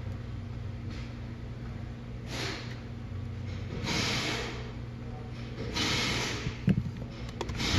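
Replacement rear wiper motor running on test, a steady low electric hum, with soft breathy whooshes every second or two and a few sharp clicks near the end.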